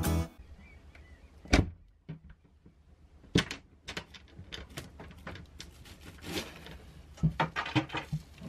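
Knocks and bumps from a foil-insulated engine-compartment access panel being handled and lifted out of its wooden frame on a sailboat. There are two sharp knocks early on and scattered lighter taps, then a quicker run of bumps and scrapes near the end as the panel comes free.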